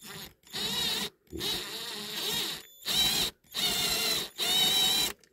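Cordless drill run in about five short bursts, its twist bit grinding into a baseplate rivet head of a diecast toy car to drill the rivet out. The bursts stop shortly before the end.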